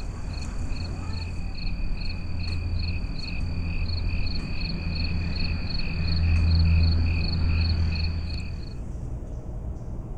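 An insect chirping steadily, about two and a half high chirps a second, stopping abruptly near the end, over a steady low rumble that swells a little past the middle.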